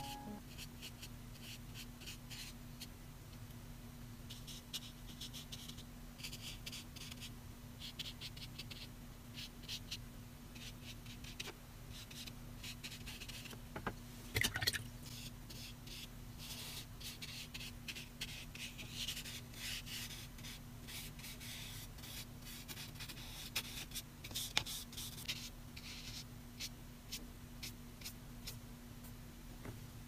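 Flat paintbrush stroking wet watercolour across watercolour paper: many short, soft brushing scrapes one after another, over a steady low hum. A louder brief sound comes about halfway through, and another a little later.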